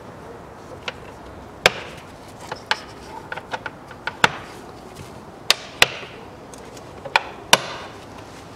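Plastic air filter housing of a Kia Sportage being pressed and knocked into place by gloved hands: a series of about a dozen sharp, irregularly spaced clicks and knocks of hard plastic.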